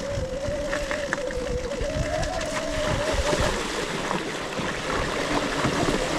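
Electric dirt bike's motor whining while riding, its pitch rising about two seconds in and then fading out, over rough tyre rumble and wind buffeting the microphone.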